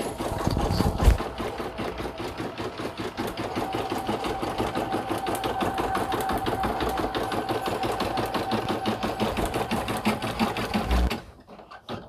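Home embroidery machine stitching out lettering at a slow 300 stitches per minute, about five needle strokes a second over its motor hum. The sound cuts off suddenly near the end.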